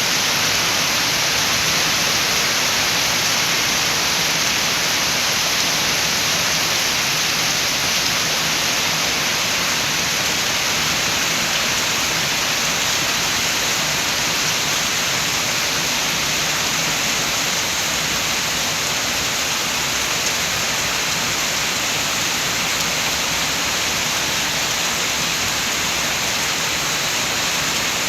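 Steady, even rain hiss, with no single drops standing out and no rise or fall.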